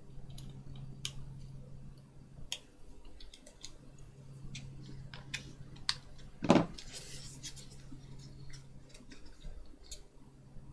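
Light clicks and taps of small parts being handled as cables and connectors are hooked up to a Nintendo Switch for a test boot, over a steady low hum, with one louder knock about six and a half seconds in.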